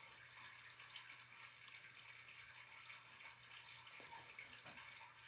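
Near silence: room tone with a faint steady hiss and hum, and a few faint small ticks.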